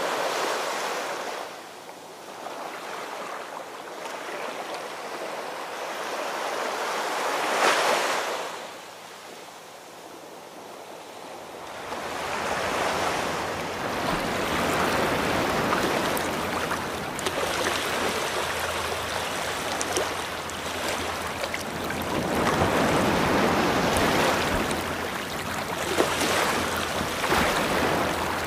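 Ocean waves breaking and washing on a shore: a rushing surf that swells and fades every several seconds.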